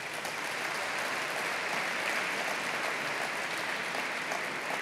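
Audience clapping: steady applause from a crowd seated at tables.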